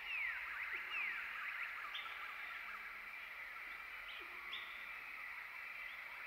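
Chorus of wild birds calling: many short, overlapping downward-sliding whistles over a steady high-pitched drone, busiest in the first two seconds.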